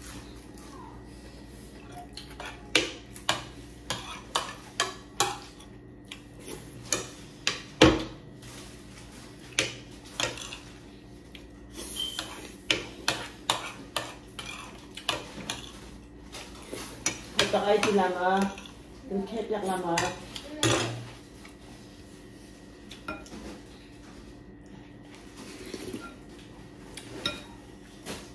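Spoons clinking and tapping against plates and a glass serving bowl during a meal: a scattered run of short, sharp clinks, the loudest about eight seconds in. A voice is heard briefly a little past halfway.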